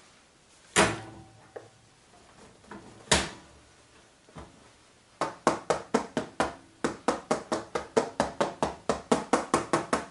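Upturned metal loaf tin knocking twice against a wire cooling rack, then tapped on its base with the fingers in a fast, even run of sharp taps, about four to five a second, to knock the baked loaf out of the tin.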